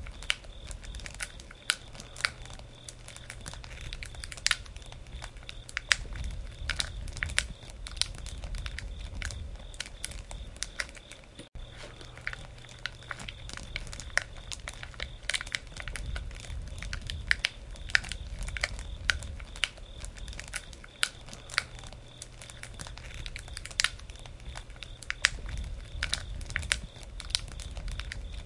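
Campfire burning, crackling with many sharp irregular pops over a steady low rumble of the flames.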